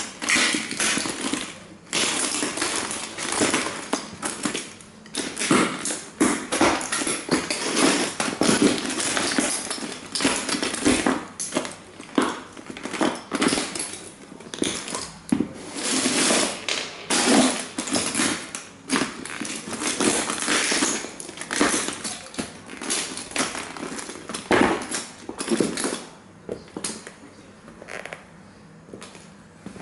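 Cowboy boots stomping on and grinding broken plastic model toy trains: repeated cracking, crunching and clattering of plastic pieces under the soles and heels, thinning out near the end.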